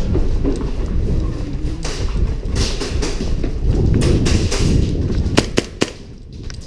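Heavy, thudding rumble of a player moving off at pace with a body-mounted camera, footfalls and gear jostling the microphone. About five and a half seconds in come three sharp cracks in quick succession, typical of airsoft shots.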